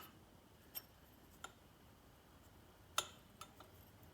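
A few light, sharp clicks and taps of small parts being handled on an air compressor pump during reassembly, the loudest about three seconds in.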